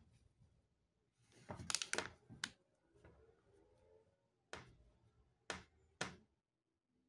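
A tissue rubbing and rustling along a stethoscope's rubber tubing, loudest a second or two in, then three short sharp clicks as the stethoscope is handled on a wooden table.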